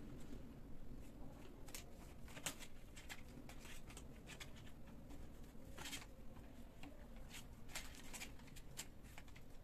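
Kittens playing on a tiled floor: scattered soft taps, scuffs and clicks of paws and claws on the tile and against slippers, the loudest about six seconds in, over a faint steady room hum.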